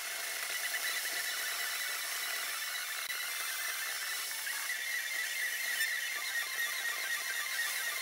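A steady hiss with a thin, high whine held at one pitch and almost no low rumble: the electronic noise of the recording rather than any audible engine or road sound.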